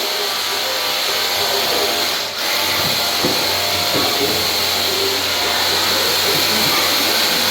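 Pressure washer running, its motor humming steadily under the hiss of the high-pressure water jet spraying a wall, with a brief dip a little over two seconds in.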